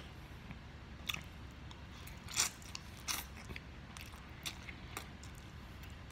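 Close-up mouth sounds of a man eating chicken-flavoured instant ramen noodles: wet chewing with several short smacks and slurps, the loudest about two and a half seconds in.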